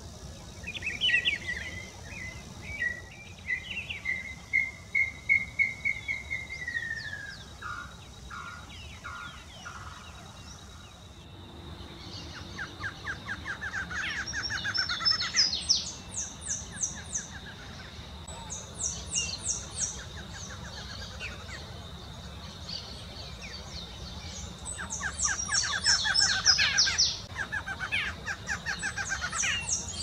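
A rufous-browed peppershrike sings a phrase of repeated notes that slide downward at the end. After a cut about 11 seconds in, a barred antshrike gives its fast, accelerating rattled song twice, with high quick notes and a steady high whine in the background.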